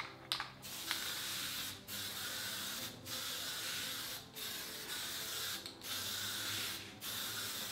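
Aerosol can of Dupli-Color automotive spray paint hissing in about six passes, each roughly a second long with brief breaks between, as a coat of white paint is sprayed on.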